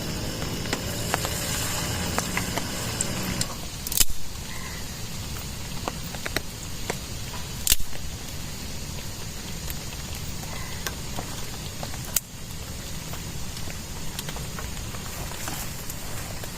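Steady rain pattering, with three sharp knocks about four, eight and twelve seconds in.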